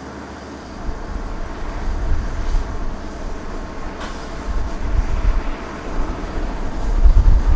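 Bombardier Dash 8 Q400 turboprop on final approach, its two Pratt & Whitney PW150A engines and six-bladed propellers droning louder from about a second in. A heavy, uneven low rumble runs beneath and peaks near the end.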